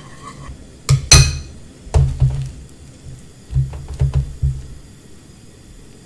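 A metal spoon clinking sharply against a non-stick frying pan twice as ghee is added, followed by several groups of dull, low knocks as the pan and dough are handled on the stove.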